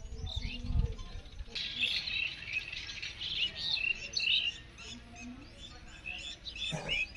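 Several birds chirping and calling in quick, overlapping phrases, busiest in the first half, with a short low rumble right at the start.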